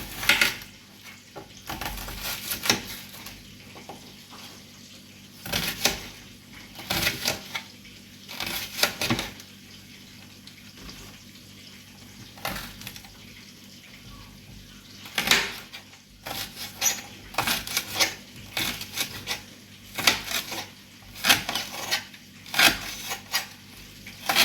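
Kitchen knife cutting vegetables on a cutting board: irregular runs of sharp knocks and clicks with short pauses between them.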